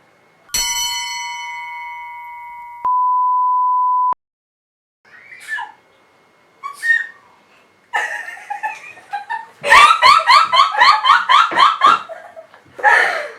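A bell-like ding rings out and fades, then a steady electronic beep holds for about a second and stops abruptly. Later comes rapid knocking, about five strokes a second, from ginger being pounded in a mortar and pestle.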